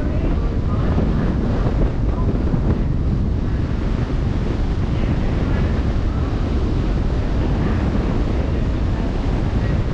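Steady wind buffeting the microphone over the wash of open-sea waves.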